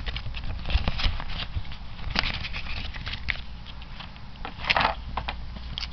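Paper leaflets and cards being handled on a table: irregular rustling, light taps and scrapes, with a longer paper rustle near the end.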